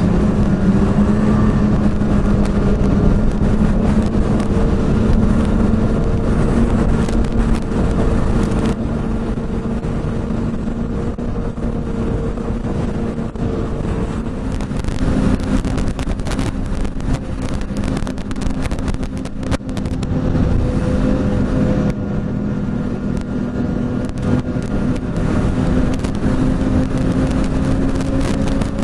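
Snowmobile engine running steadily while riding a trail, its note climbing slightly in the second half. Gusting wind buffets the microphone with crackling noise throughout.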